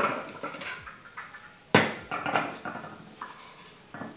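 Kitchen knife and wooden cutting board: a sharp knock at the start and another about two seconds in, then lighter taps and clinks as sliced turmeric is scraped off the board into a glass cup.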